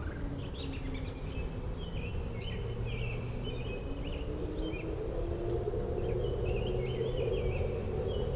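Several birds chirping and calling in the trees, with short, repeated notes and quick downward-sweeping whistles. Underneath runs a steady low drone whose pitch slowly dips and then rises again.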